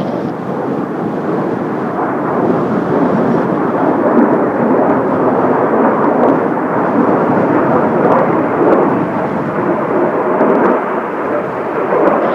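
Jet noise from the Blue Impulse's Kawasaki T-4 trainers' twin turbofan engines, a steady loud rushing sound that swells a little about four seconds in, mixed with strong wind.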